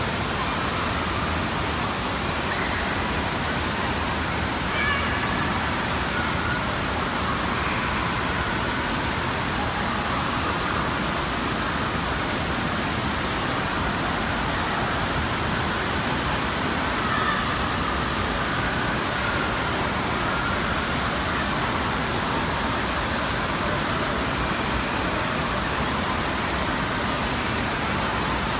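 Steady rushing of water filling a large indoor water park hall, echoing and even throughout, with faint distant voices mixed in.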